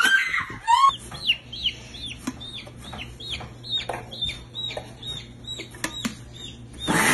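Baby chick peeping: a steady string of short, high, falling peeps, about three a second. A louder rising sound at the very start and a brief burst of noise near the end.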